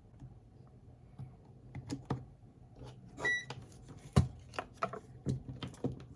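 Small clicks and knocks of a plastic battery box and multimeter probes being handled, with one short high beep from a digital multimeter a little over three seconds in.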